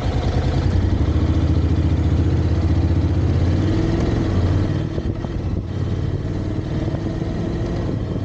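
Motorcycle engine running as the bike is ridden, with wind rush; its pitch rises a little from about two seconds in. It fades out near the end.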